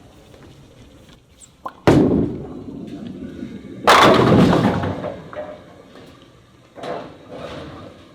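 Bowling ball landing on the lane with a sudden thud about two seconds in and rolling with a rumble, then crashing into the pins about two seconds later; the pins clatter and the crash dies away over a couple of seconds, with smaller clatters near the end.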